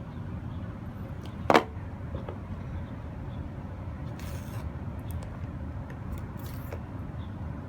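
AirPods packaging being handled during unboxing: one sharp snap about a second and a half in, then a couple of brief, faint rustling scrapes.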